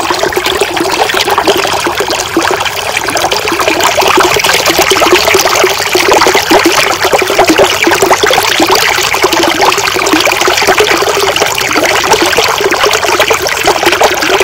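Thin stream of water pouring from a pipe spout into a small tank through a hole in its top, splashing and trickling steadily without a break; the tank is full and overflowing.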